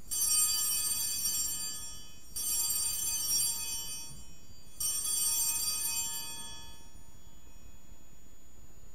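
Altar bells rung three times, about two and a half seconds apart, marking the elevation of the chalice at the consecration. Each ring is a bright, high shimmer that fades over about two seconds.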